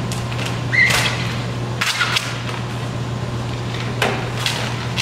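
Thick 5-mil vinyl wrap film rustling and scraping as it is smoothed onto a car hood by hand and with a squeegee: a few short scrapes and a brief squeak about a second in, over a steady low hum.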